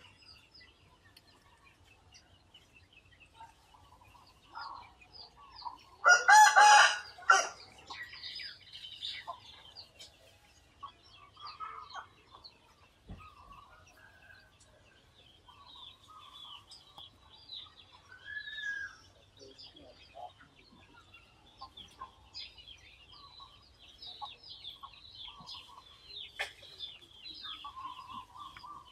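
A rooster crows once, loudly, about six seconds in, over small birds chirping throughout.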